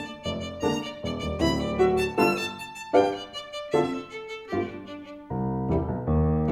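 Instrumental music: a violin playing a melody of short separate notes, giving way about five seconds in to sustained low chords.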